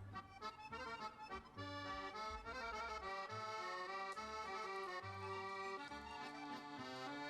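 Background music: an accordion tune over a simple bass line.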